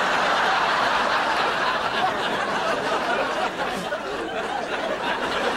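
Studio audience laughing, a steady wave of laughter that eases a little in the second half.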